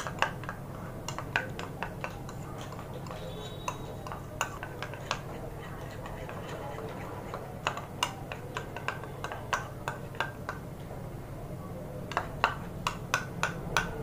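A spoon stirring a thick gram-flour and turmeric paste in a plastic bowl: irregular clicks and taps of the spoon against the bowl, coming in flurries with a short lull about midway.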